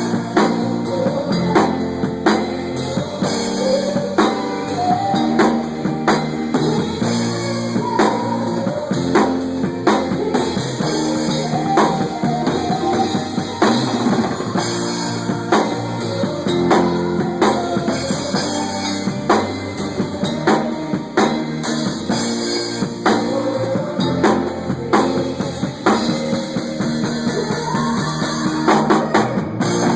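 Rock band playing: a drum kit keeps a steady beat with bass drum hits under sustained guitar chords and melody lines.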